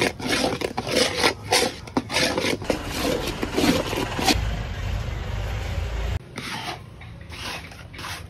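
A metal spatula scraping and stirring thick, stiff burfi mixture around a large metal kadai, in quick rasping strokes about three a second. About four seconds in, a low rumble takes over for a couple of seconds, then the scraping goes on more quietly.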